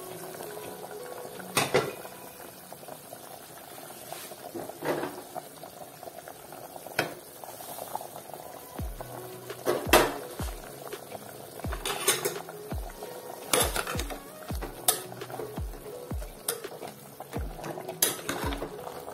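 A metal pot of smoked pork stew with potatoes, cherry tomatoes and green chillies boiling hard, a steady bubbling hiss. Sharp clinks and knocks against the pot come every second or two.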